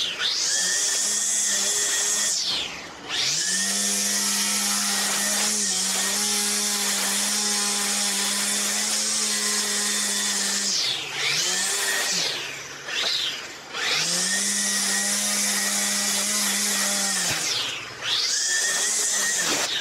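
Battery-powered string trimmer edging grass against a concrete path: its electric motor whines at full speed, easing off and spinning back up three times, about three seconds in, a longer dip about two thirds of the way through, and near the end.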